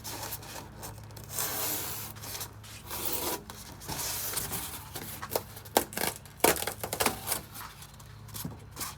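Styrofoam packing being rubbed, scraped and pushed into a cardboard box, irregular scraping strokes with a few sharper, louder squeaks and knocks about two-thirds of the way through.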